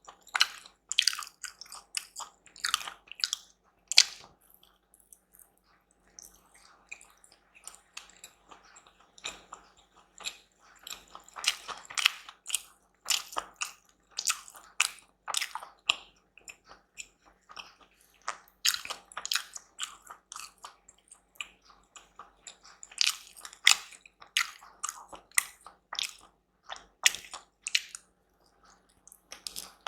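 Close-miked eating: a person chewing and biting food, with short crisp clicks and smacks coming irregularly and a brief lull about six seconds in.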